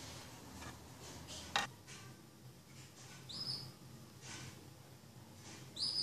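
Two short, high canary chirps, one about three seconds in and one near the end, over soft breathy rustling, with a sharp click about one and a half seconds in.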